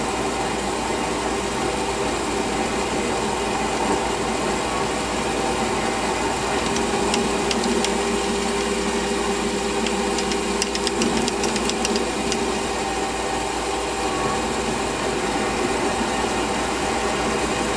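Metal lathe running at about 800 RPM with an off-centre workpiece in the chuck, a speed at which the lathe starts to wobble, while a centre drill in the tailstock cuts into the end face. A steady machine hum with light ticks around the middle.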